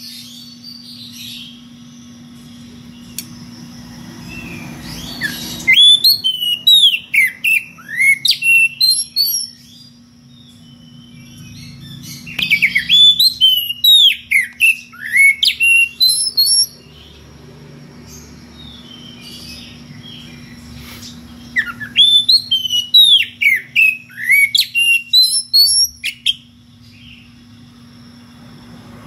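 Oriental magpie-robin singing in three loud bouts of rapid, sweeping whistled phrases, each about four seconds long, with short pauses between. It is a full song calling out a challenge to rival birds.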